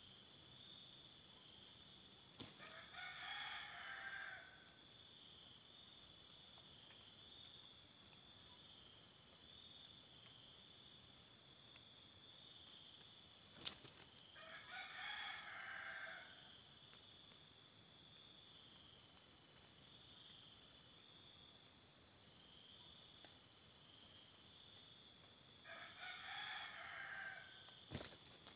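A junglefowl rooster crows three times, about twelve seconds apart, each crow lasting about two seconds. A steady, high insect drone runs underneath.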